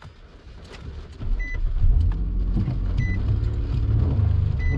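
Nissan Maxima's V6 engine starting about a second in and settling into a steady idle, sounding fine to the driver despite a reported engine fault. A short dashboard chime beeps three times, evenly spaced.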